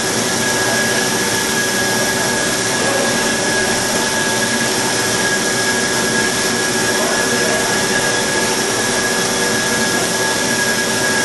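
Cosen bandsaw running through a cut, its blade sawing into metal stock: a steady, even machine noise with a high, constant whine on top.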